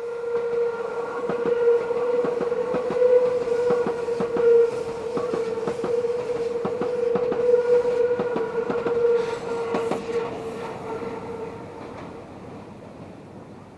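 Meitetsu electric train wheels squealing on a tight curve: a loud, steady, high wheel squeal from the wheels rubbing the rail on the curve, mixed with the clack of wheels over rail joints. The squeal fades out near the end.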